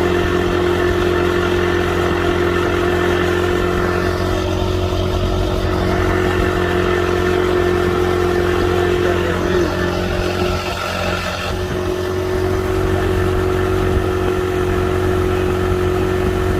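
Speedboat engine running steadily at speed, with a strong held tone over wind and water rush. It eases off briefly about ten seconds in, then picks back up.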